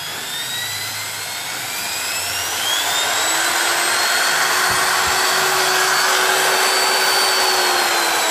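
Corded electric drill's motor running with no load, its whine rising as it speeds up over the first few seconds, holding steady at full speed, then dropping slightly near the end. The drill runs on a newly fitted reversing, variable-speed trigger switch.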